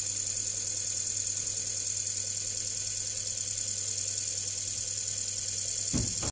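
Laboratory high-speed disperser running steadily: a motor hum with a constant high hiss as its spinning shaft and blade mix latex paint in a plastic bucket.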